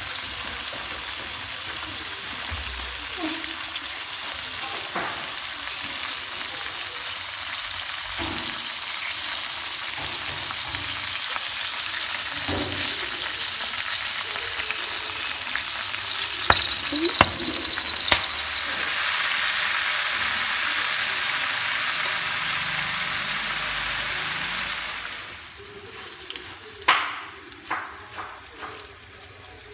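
Grubs deep-frying in hot oil in a metal pan, with a steady sizzle and a few sharp clicks partway through. Near the end the sizzle drops much quieter, and metal tongs click several times against the pan as the fried grubs are lifted out.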